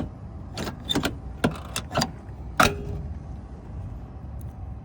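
Short metallic clicks and taps of a Lishi pick-decoder being worked in the 1991 Ford Bronco's lock cylinder, about six in the first three seconds, the sharpest with a brief ring. A steady low hum runs underneath.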